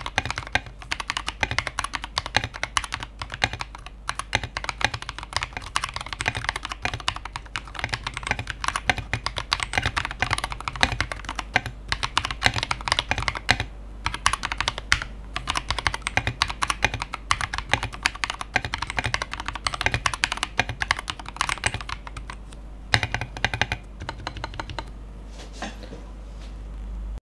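Fast, continuous typing on a Royal Kludge RK68 Pro mechanical keyboard with an aluminium case, KTT Strawberry linear switches and SA-profile keycaps: a dense run of key clacks that slows to scattered keystrokes near the end. A steady low hum sits underneath.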